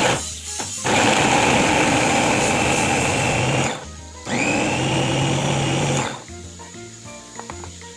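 Electric meat grinder motor running in two bursts, one of about three seconds and one of about two seconds, with a steady whine; it stops briefly between them and spins up again at the start of the second. Background music plays throughout.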